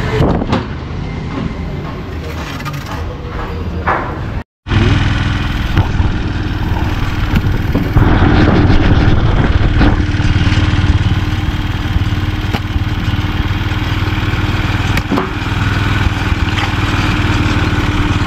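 A Dayang cargo motor-tricycle's engine running steadily under load on a rough, muddy dirt track, a constant low hum with frequent small knocks and rattles. It follows about four seconds of street noise that ends in a sudden cut.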